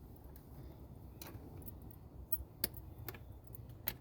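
Scattered light metallic clicks and taps of a hand tool working the intake hose clamp loose, about half a dozen irregular ticks over a faint low hum.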